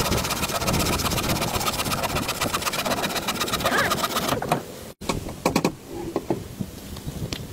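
A small power tool runs with a fast, even chatter for about four and a half seconds, then stops. After that come a few scattered knocks.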